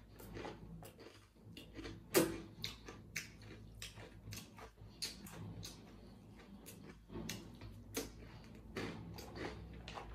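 Close-miked chewing of dried galeta rusk pieces coated in a spicy ketchup and red pepper sauce: an uneven run of sharp crunches and wet clicks, the loudest about two seconds in. Fingers also pick through the plastic tub.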